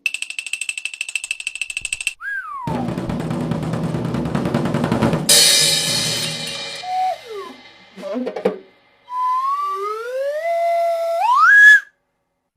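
A run of cartoon sound effects: a fast trilling ring, a short falling whistle, a drum roll ending in a cymbal crash that fades, a couple of short sliding tones, then a long slide whistle rising in steps and cutting off near the end.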